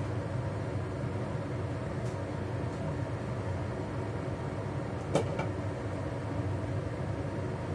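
Steady hum of a kitchen range hood fan, with a single sharp clink about five seconds in as the lid is set back on the wok.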